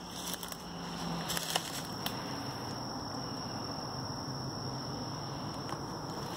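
Steady outdoor background hum with a few light crunches of footsteps on dry sticks and leaf litter in the first couple of seconds and once near the end. A thin, steady high tone joins about two seconds in.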